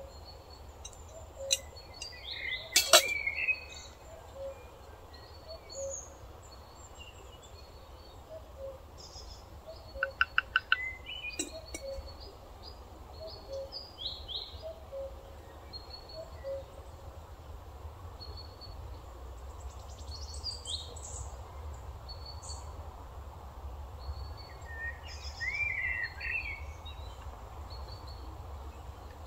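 Woodland birds chirping and calling, with a soft note repeating about every second under them. There is a sharp click about three seconds in and a quick run of clicks around ten seconds, over a steady low rumble.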